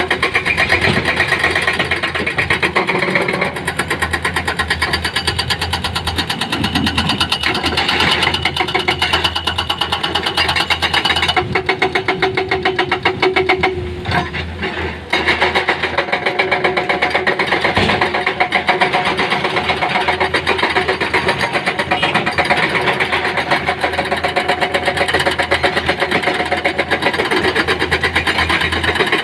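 An engine running steadily with a rapid, even clatter, dropping briefly in level about fourteen seconds in.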